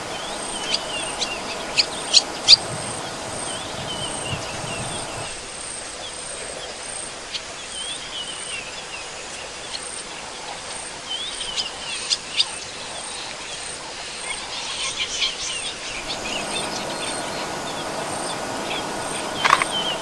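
Wild birds calling in short downward-slurred chirps, in scattered clusters, over a faint steady high pulsing buzz.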